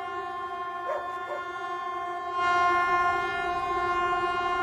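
Civil-defence warning siren sounding one steady, unwavering tone, growing louder about halfway through.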